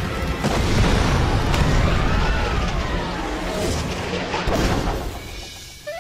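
Cartoon explosion of a gas barbecue grill: a loud blast about half a second in that rumbles on for several seconds, with scattered crackles and clatters near the end.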